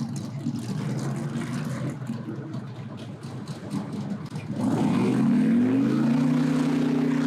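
Engine rumble, then about halfway through an airboat's engine and propeller spin up: the pitch rises quickly, then holds a steady, louder drone.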